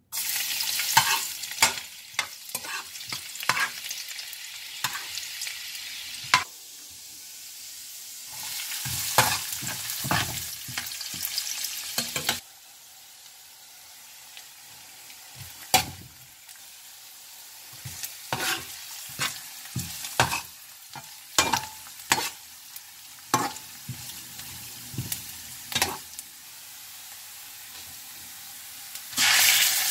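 Chopped garlic and vegetables sizzling in hot oil in a frying pan, with a metal spoon clicking and scraping against the pan as they are stirred. The sizzle starts as the garlic hits the oil and dies down partway through. It flares loudly again near the end as ground pork is tipped in.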